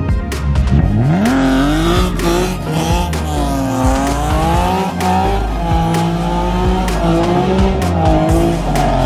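BMW E46 coupe's engine revving up and its rear tyres squealing as the wheels spin and smoke on wet tarmac while the car pulls away. The pitch rises about a second in, then wavers up and down. Background music plays underneath.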